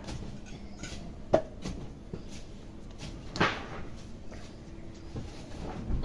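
Hands striking the head during an oil head massage: a few sharp smacks, the loudest about a second in, another about three and a half seconds in, and a softer one near the end.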